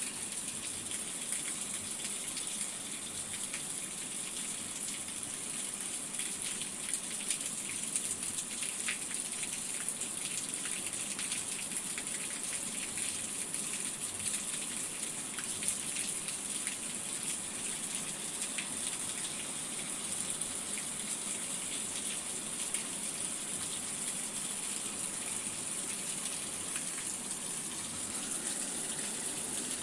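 Steady rain falling, a constant hiss with many small drop ticks scattered through it.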